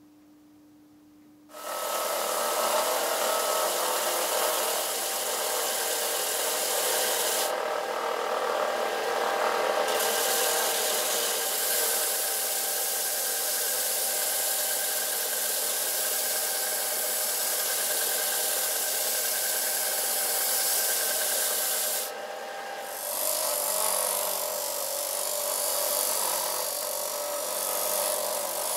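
RYOBI BDS-1000 belt-disc sander running, with a mahogany guitar headstock and neck pressed against its belt, starting about a second and a half in. The hiss of wood on the belt stops twice for a few seconds as the piece is lifted off, leaving the steady hum of the motor and belt.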